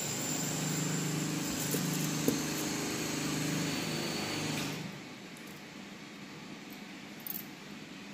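A steady mechanical hum with a hiss over it, with one sharp click a little past two seconds in. It cuts off abruptly about four and a half seconds in, leaving quieter background noise.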